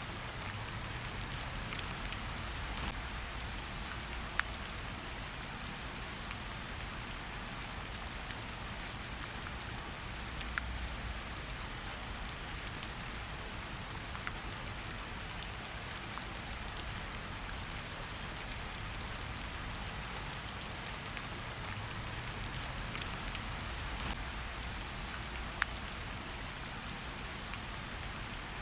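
Steady heavy rain falling on a surface, with single sharp drop hits standing out now and then. A low rumble runs underneath and swells a few times.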